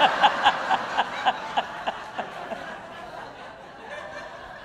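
Audience laughing at a punchline, with one loud laugh pulsing about four times a second for the first two seconds before the laughter slowly dies down.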